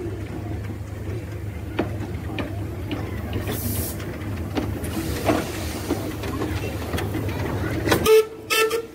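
Hunslet 4-6-0 narrow-gauge steam locomotive running slowly past along a platform: a steady low rumble with scattered clicks of wheels and motion. Near the end the rumble cuts off and a short whistle toot sounds.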